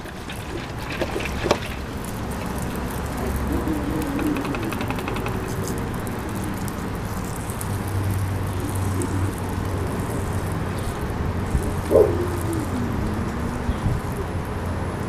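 Garden hose spraying a stream of water onto a tire and wheel, a steady splashing hiss as the tire cleaner is rinsed off. A brief wavering pitched sound stands out about twelve seconds in.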